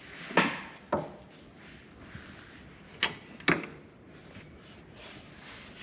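Sharp knocks and clicks of hand tools and metal parts being handled while a table saw is taken apart: four strikes in two pairs, the pairs about half a second apart.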